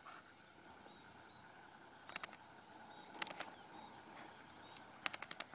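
Quiet outdoor ambience with faint short bird chirps and several clusters of sharp clicks, the loudest about three seconds in and again near the end.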